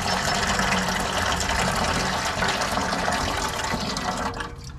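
Water running from a rain barrel's spigot into a bucket, a steady splashing fill that stops a little after four seconds in.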